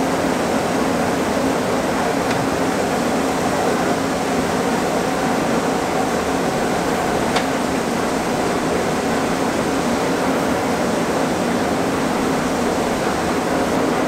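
Shelled corn pouring from a gravity wagon's side chute through a grain pit grate, under a steady drone of running farm machinery with a constant low hum.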